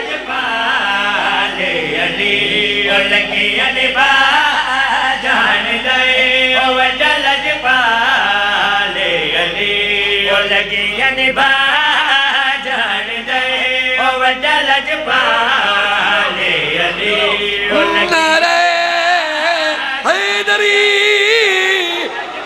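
Male voices singing a devotional Urdu-Punjabi qasida into microphones, in long wavering melodic lines that bend up and down in pitch.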